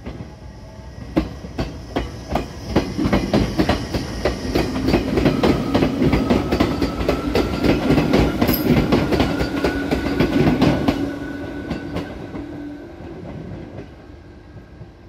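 An Izukyu 8000 series electric multiple unit (ex-Tokyu 8000 series) passing close by, its wheels clacking over the rail joints in a quick, even rhythm, with a motor whine that rises slightly in pitch. The sound swells as the cars go past and fades near the end as the train draws away.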